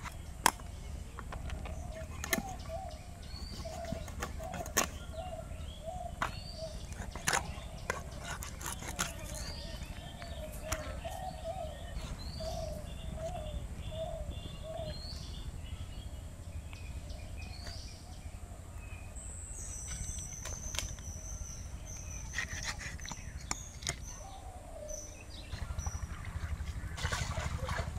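Outdoor birdsong, with one bird repeating a short chirping call many times over. Sharp knocks come every couple of seconds as a pangas catfish is cut up on a boti blade. Water splashing near the end.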